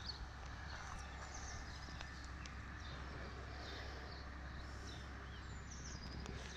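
Outdoor ambience of small birds chirping on and off, over a low steady rumble.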